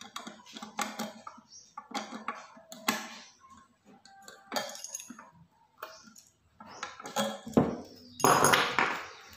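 Metal mounting hardware, a U-bolt clamp with its nuts and a steel bracket, clinking and rattling in a string of separate short clatters as it is handled and fitted to the back of an outdoor panel antenna. Near the end comes one louder, longer scraping noise.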